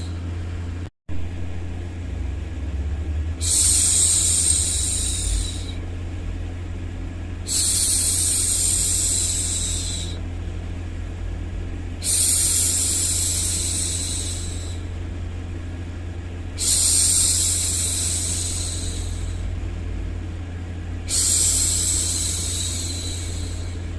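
A woman's voice making long, drawn-out 'shhh' hushing sounds, five of them, each about two seconds long and repeating about every four and a half seconds, over a steady low background noise bed. The sound cuts out completely for a split second about a second in.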